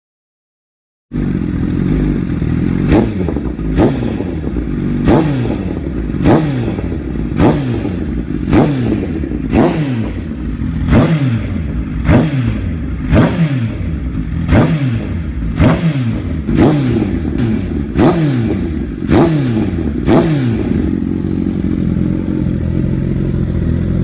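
Kawasaki NS200 single-cylinder engine through a modified aftermarket exhaust, after about a second of silence, revved in quick throttle blips about once a second, each rev falling straight back. It settles into a steady idle near the end.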